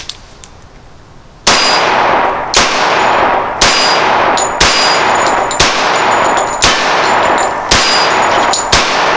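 Ruger Lightweight Commander .45 1911 pistol firing Armscor 230-grain ball ammunition: eight shots about one second apart, starting about a second and a half in. Each shot has a ringing tail.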